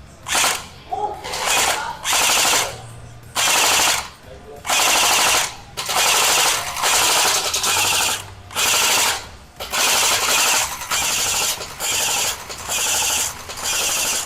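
Battery-powered CQB arena blaster firing a dozen or so short full-auto bursts, each a fraction of a second to about a second long, growing shorter and choppier near the end.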